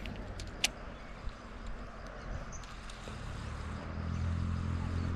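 A motor vehicle's engine passing close by, its low hum growing louder in the second half. A few sharp clicks sound near the start.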